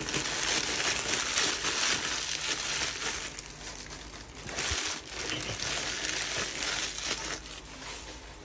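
Clear plastic packaging crinkling and rustling as it is pulled off flat plastic organizer panels and crumpled up. It comes in two spells, one through the first three seconds or so and another a little after halfway.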